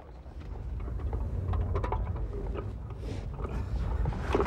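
Low rumble of wind and handling noise on the microphone, growing louder about a second in, with scattered light clicks and knocks.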